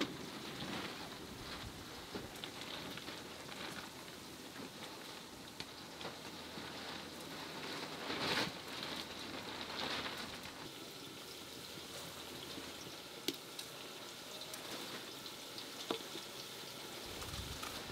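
Wood fire burning in a clay hearth under a cooking pot, with a steady soft crackle and a few sharper pops.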